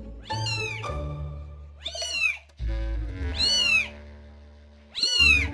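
Young kitten mewing: four high cries that rise and fall, about a second and a half apart. It is a kitten crying for its mother to fetch it. Background music plays underneath.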